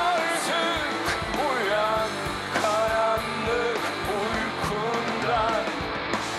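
Alternative rock band playing live: electric guitars and drums under a sung vocal melody, amplified over a stadium PA.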